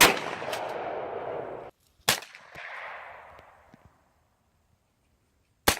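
Three gunshots fired at pumpkin targets: one at the start, one about two seconds in and one near the end, each sharp crack followed by a long fading echo.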